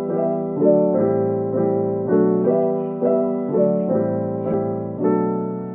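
Background music: piano or electric keyboard playing repeated chords, a new chord struck about every half second and fading between strikes.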